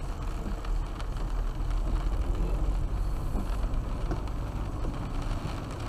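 Car cabin noise while driving: a steady low rumble of engine and tyres on a wet road.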